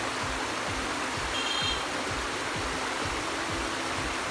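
Shallow river water running over rapids, a steady rush, under background music with a regular low beat; a brief high note sounds about a second and a half in.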